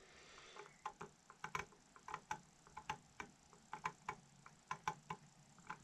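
Faint, irregular light clicks and ticks of a steel scribe's point working against a flintlock rifle barrel as a center mark is scratched in, roughly two to four clicks a second.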